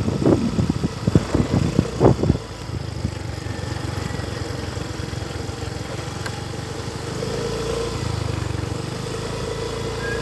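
Motorcycle engine running steadily while riding, heard from the pillion seat, with a few loud gusts of wind on the microphone in the first two seconds. The engine note grows a little louder about seven seconds in.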